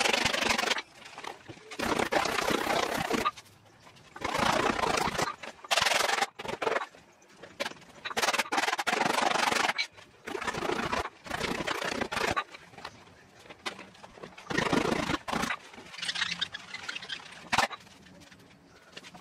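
Leather of a new Wilson A2000 softball glove rubbing and scraping in irregular bursts of about a second, as a wooden mallet is worked into the stiff pocket and the glove is flexed by hand to break it in. There is one sharp knock near the end.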